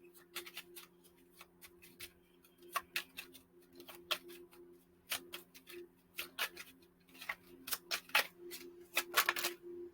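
Irregular light clicks and taps of small hard objects being handled, at varying pace, over a faint steady low hum.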